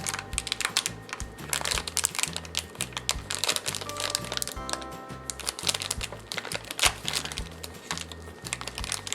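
Background music with a repeating bass line, over many light clicks and taps of plastic Lego Duplo pieces being handled.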